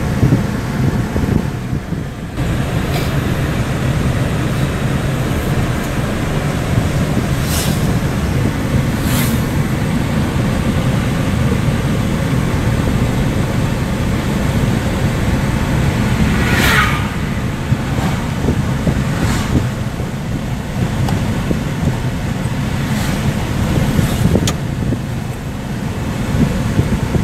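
Road noise inside a moving car: a steady low rumble of engine and tyres, with a few brief whooshes of passing traffic, the loudest about halfway through.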